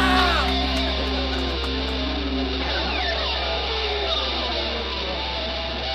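Punk rock music with electric guitar, a held chord ringing out and slowly fading.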